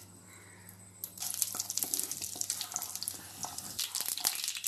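Mustard seeds and black gram sizzling in hot oil and starting to splutter. The steady hiss with many small pops sets in about a second in.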